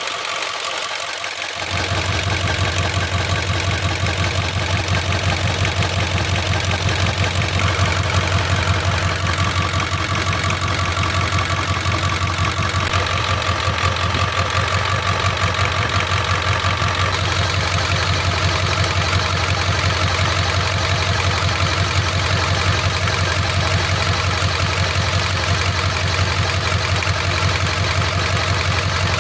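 Ford 7.3 L Power Stroke V8 turbo-diesel idling steadily, its low hum filling in about a second and a half in. The idle is slightly rough: cylinder #5 fails the contribution test even with brand-new injectors fitted.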